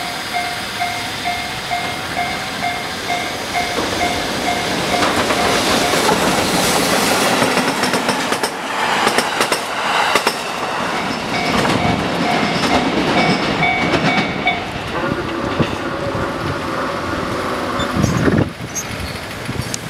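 Japanese level-crossing warning bell ringing in a fast repeated two-tone ding, and a locomotive-hauled train passing over the crossing, its wheels clattering over the rail joints. The bell stops about three-quarters of the way through, and a loud rumble comes near the end.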